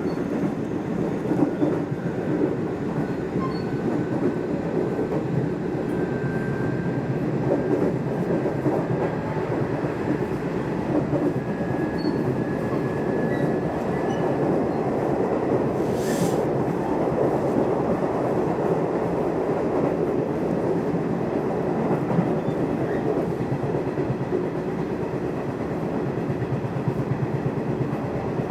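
Nishitetsu electric commuter train running between stations, heard from inside the carriage: a steady rumble of wheels on rail with some clickety-clack, and one sharp click a little past halfway.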